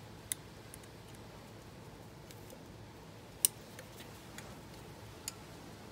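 A few sharp plastic clicks and faint ticks as a small screwdriver pries at the locking tab of an electrical wiring plug to unclip it, one click much louder about halfway through.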